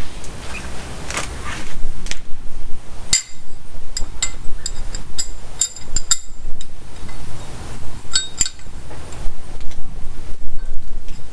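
Wrench and socket working the bolts of a cam retaining plate: a run of sharp, ringing metallic clicks and clinks starting about three seconds in, then a couple more later.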